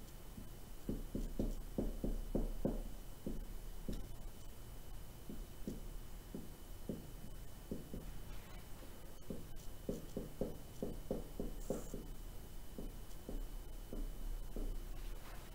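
Marker pen writing on a whiteboard: runs of short strokes and taps as words are written, in two busier spells near the start and about two-thirds of the way through.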